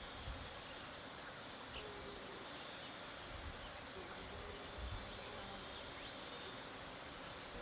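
Bees buzzing around a flower bed over a steady outdoor hiss, with a couple of faint, brief bird chirps.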